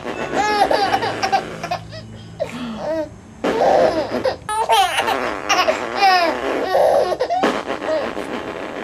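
A baby laughing in repeated bouts of giggles and belly laughs, with short breaks between them.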